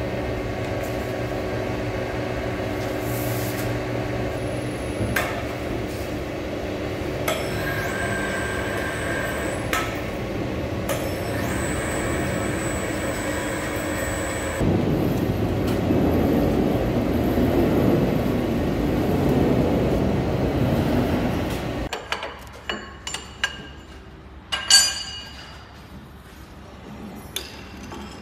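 Steady hum of heavy shop machinery with a few knocks and brief high ringing tones, growing louder and rougher about fifteen seconds in, then cutting off abruptly. After it comes a series of sharp metal clanks and clinks as the lathe's cast steady rest is handled, the loudest clank a few seconds after the hum stops.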